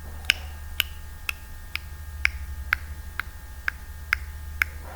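Ticking clock sound effect counting down while the answer is awaited: sharp, evenly spaced ticks about two a second, over a steady low hum.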